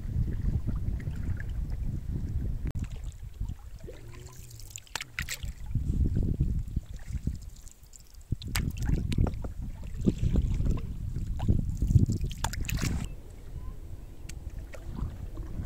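Canoe being paddled on open water: an uneven low rumble of wind on the microphone with water sounds, broken by a few sharp knocks, most of them around the middle and about three-quarters through.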